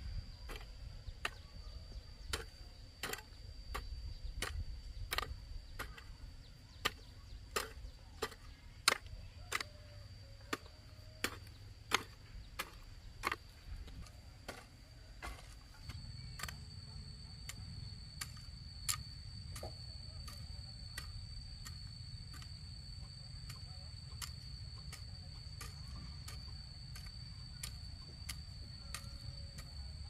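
Insects shrilling in one steady high tone. Over it, sharp ticks of a hand hoe chopping into dry soil come about one and a half times a second, loudest in the first half and fainter after a change at about 16 s.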